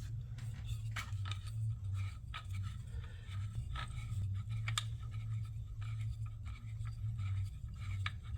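Light scattered clicks and scrapes of small gear being handled on a table, over a steady low electrical hum.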